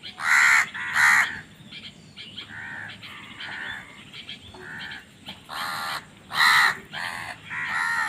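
A flock of house crows cawing: a string of separate caws, loud about half a second and a second in and again in the last few seconds, with softer caws between.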